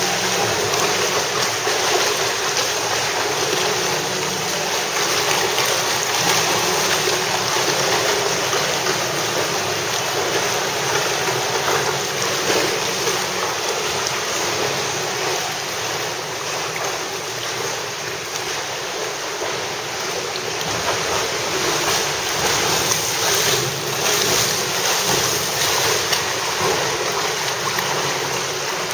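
Continuous splashing and churning water from several swimmers flutter-kicking with kickboards in a pool.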